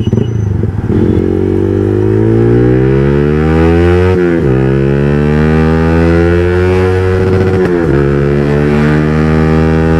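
Yamaha R15 V3's 155 cc single-cylinder engine, loud through an aftermarket Akrapovic exhaust, accelerating hard under way. The pitch climbs steadily through each gear, with quick upshifts about four seconds in and again about seven and a half seconds in.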